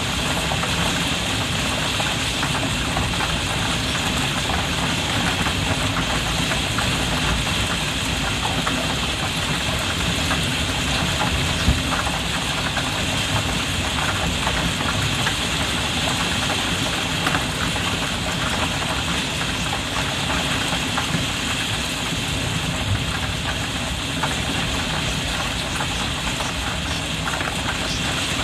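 Heavy rain heard from indoors, drumming steadily on a roof skylight window, a dense patter of drops on the glass with one slightly louder tap about twelve seconds in.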